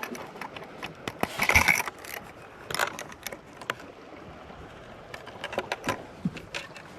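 Fishing tackle being handled: a reel and a planer board clipped onto the line give irregular mechanical clicks and knocks, loudest about a second and a half in.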